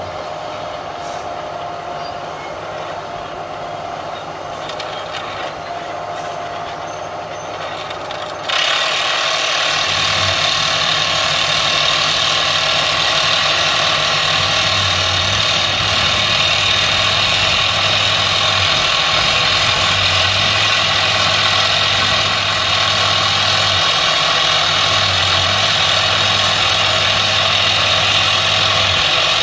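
Soosan JD-800 hydraulic crawler rock drill rig running; about eight seconds in the sound jumps to a much louder, steady hissing rattle as drilling into rock begins, and holds there.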